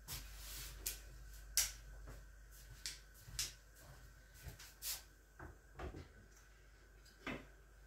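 Light, scattered knocks and clicks of things being handled in a kitchen, about eight over several seconds, the kind made by cupboard doors and dishes being moved.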